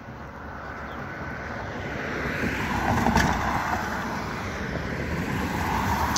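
A car driving past on a city street: tyre and engine noise growing louder as it approaches, loudest about three seconds in.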